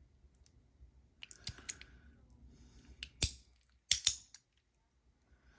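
Sharp clicks of a metal fidget slider being worked by hand, about five clear clicks in uneven pairs and singles with fainter ticks between; the sliding part is stiff and in need of oil.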